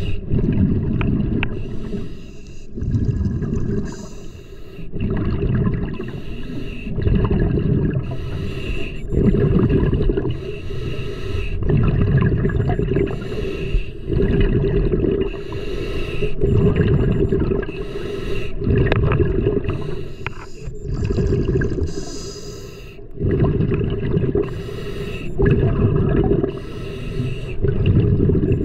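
A scuba diver's regulator breathing underwater: hissing inhales and bubbling exhales that surge and fade every second or two in a steady cycle.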